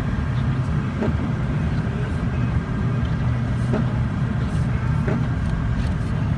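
Motor vehicle engine running steadily, a constant low hum with a few faint ticks.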